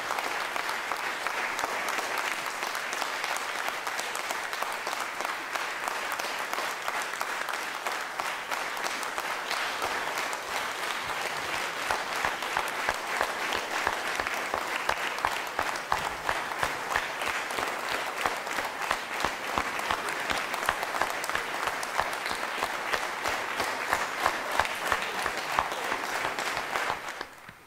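Theatre audience applauding, a dense clatter of many hands clapping. About halfway through the individual claps become louder and sharper. The applause cuts off suddenly at the very end.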